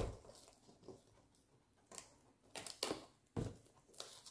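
Faint handling sounds of a sealed cardboard earbuds box being opened: a series of short, scattered clicks and rustles as fingers pick at the top flap.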